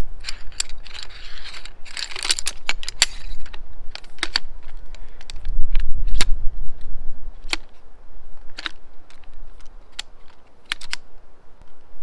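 Folding camping chair frame being unfolded by hand: irregular clicks and clacks as the legs and arms swing out of their hub joints, thickest in the first few seconds, with a low rumble of handling about halfway through.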